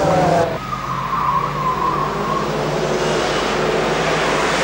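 Porsche 944 Turbo Cup race cars with turbocharged four-cylinder engines passing at speed. One engine's pitch falls as it goes by, then the sound cuts about half a second in to the steady noise of the pack of cars driving past.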